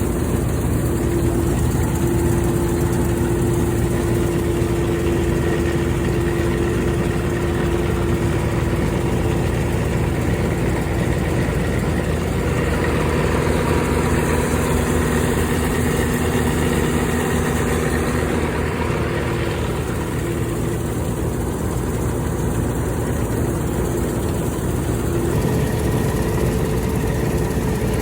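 Old New Holland Clayson M122 combine harvester's engine running steadily at an even speed.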